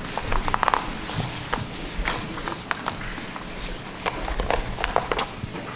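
Scattered rustles, clicks and soft knocks of a seated congregation shuffling and turning Bible pages, with a person's footsteps among them.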